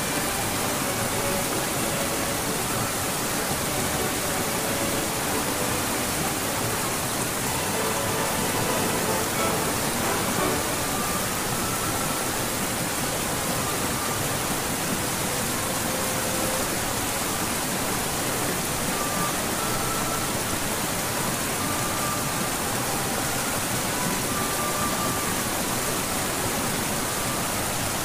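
Mountain headwater stream and small waterfall: a steady rush of flowing water over rocks.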